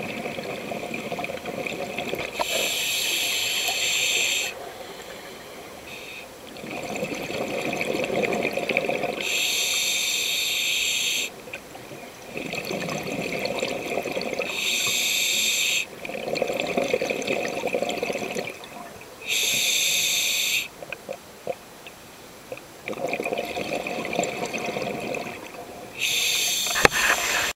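Scuba diver breathing through a regulator underwater: about five breaths, each a hissing inhale through the demand valve followed by a longer rumble of exhaled bubbles, repeating every five to seven seconds.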